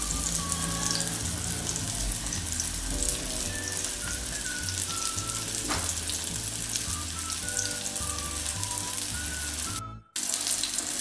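Breaded chicken patty shallow-frying in hot oil, a steady sizzle and crackle, with soft background music underneath. The sound drops out for a moment near the end.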